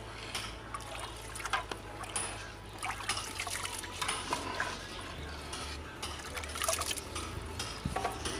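A long metal spatula stirring rice cooking in milk in a large aluminium pot: the liquid sloshes and swirls, with irregular short ticks as the blade knocks the pot.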